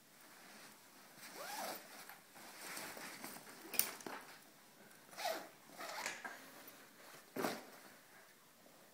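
Bag zippers being pulled in several short separate strokes, with rustling of fabric bags being handled.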